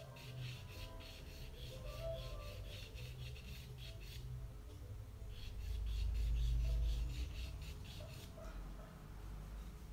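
Pencil scratching on paper in quick, even strokes, about four a second. The strokes pause for about a second near the middle, then resume. A dull low rumble is heard in the second half and is the loudest sound.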